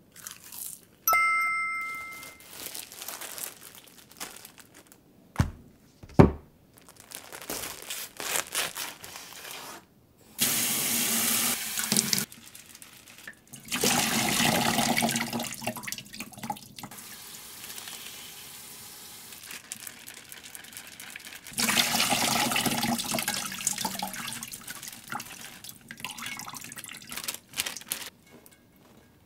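Kitchen tap running into a stainless steel sink in three long spells while a bunch of enoki mushrooms is rinsed under it, with wet handling sounds between. About a second in a short two-tone ringing chime sounds, and a few seconds later come two sharp knocks, the loudest sounds here.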